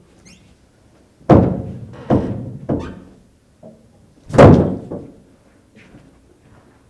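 A run of heavy, echoing thuds: three in quick succession about a second in, and the loudest a little past the middle, each fading out slowly. Faint footsteps follow near the end.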